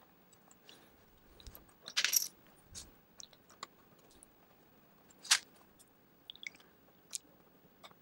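Sharp plastic clicks and scrapes as a plastic pry tool and fingers work along the seam of a Mac Mini's aluminium case, prying at the clips that hold the bottom cover. There is a loud cluster of clicks about two seconds in, a single sharp snap a little after five seconds, and a few lighter ticks between them. The footage runs at double speed.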